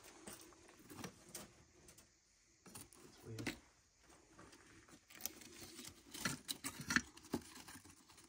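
Faint, irregular light clicks, taps and rustles of people moving and handling objects among crumbling plaster debris, busiest and loudest about six to seven seconds in.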